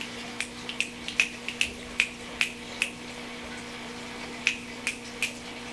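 A series of about a dozen sharp clicks, irregularly spaced, with a pause of over a second in the middle.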